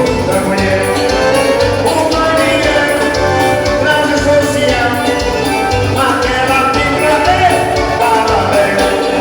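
A band playing Latin-style dance music with a singer over a steady beat.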